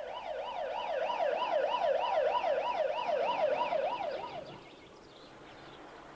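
Emergency vehicle siren in a fast yelp, its pitch sweeping up and down about three times a second. It fades out after about four seconds.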